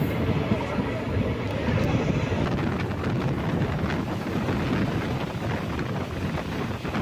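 Purulia–Tirunelveli Express train running, a steady rumble of wheels on rail with wind buffeting the microphone.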